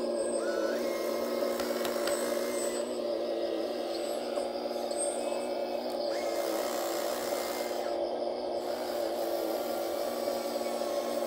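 RC model Kobelco excavator's electric drive whining steadily while digging, with a higher whine stepping in twice as the arm and bucket work.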